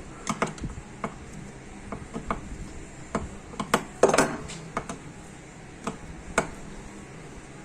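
Metal parts of a power steering rack and the hand tools working on it clinking and clicking at irregular intervals, with a louder clatter about four seconds in.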